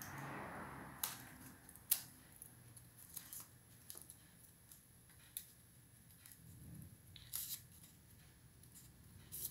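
Small scissors snipping folded paper, cutting little triangular notches into a paper wing edge: a series of separate, irregularly spaced sharp snips, the clearest about one and two seconds in, with a soft paper rustle at the start.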